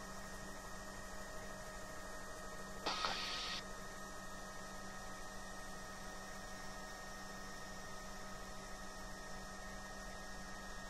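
Steady hum of a Bell 505 helicopter's Safran Arrius turboshaft engine and rotors in flight, heard inside the cockpit. About three seconds in comes a short burst of hiss.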